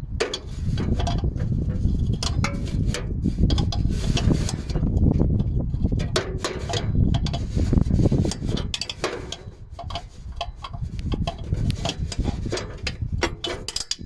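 Tools working on a rusted exhaust clamp nut under a car: many irregular metallic clicks and knocks over a steady low rumble.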